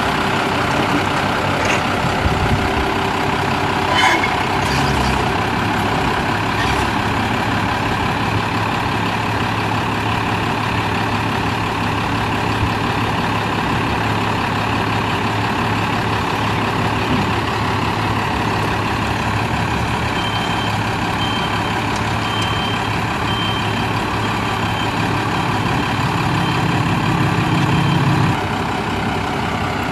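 Freightliner FL70's Cummins ISB 5.9 L inline-six diesel idling steadily. About two-thirds of the way through, a faint backup alarm beeps at an even pace for several seconds. Near the end the engine note rises for a couple of seconds, then settles back.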